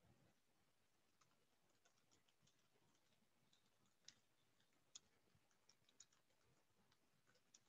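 Near silence with faint, irregular small clicks, a few louder ones in the middle, as of fingers tapping on a laptop's keys.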